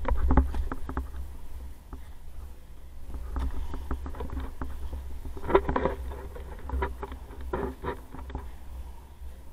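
Inline skate wheels rolling over concrete: a steady low rumble broken by irregular clusters of clacks and knocks, the loudest just after the start and about halfway through.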